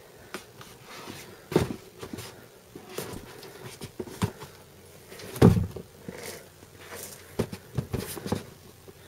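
Sneakers being handled near the microphone: a string of knocks, taps and rubbing as the shoes are turned over and set down, with two louder thumps, one about a second and a half in and the loudest just past halfway.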